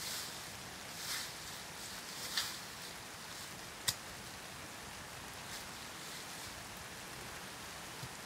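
Spade digging into leaf-covered garden soil: a couple of brief scraping strokes and one sharp knock about four seconds in, over a steady outdoor hiss.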